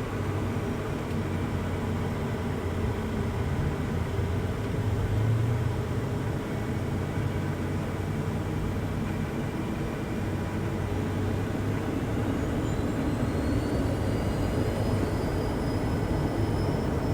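Cockpit noise of a Cessna Citation business jet: a steady low engine drone. About twelve seconds in, a rising whine joins it as the turbofan engines spool up toward takeoff power.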